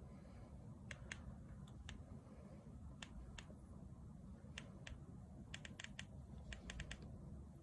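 Faint, sharp clicks of the push-buttons on a Mawl C1+ replica laser aiming device being pressed to switch its laser and light modes: single pairs at first, then two quick runs of about four clicks near the end.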